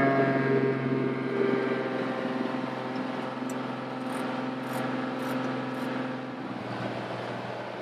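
Light aircraft's piston engine and propeller running steadily, heard from inside the cockpit. Near the end the engine's steady tone gives way to a rushing noise.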